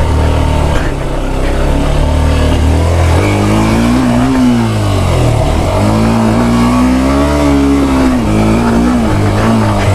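Motorcycle engine labouring on a rough off-road climb: a steady low note at first, then revs rising and falling again and again from about three seconds in.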